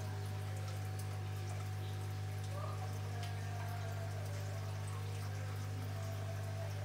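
Aquarium filter running: a steady low hum with water trickling and dripping.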